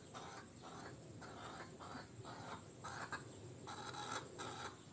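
Hens clucking faintly: a loose string of short, soft clucks.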